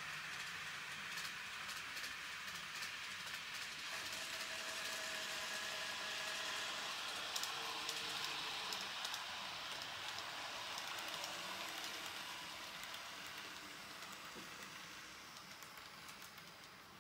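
N gauge model train running on the layout's track: a steady hiss of wheels and motor with a faint whine, growing a little louder toward the middle and fading away near the end.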